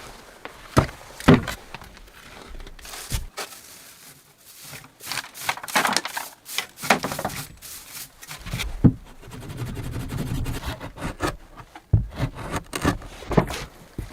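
Hands-on handling noises: a series of irregular sharp knocks mixed with scraping and rustling, with a low rumble for a few seconds about two-thirds of the way through.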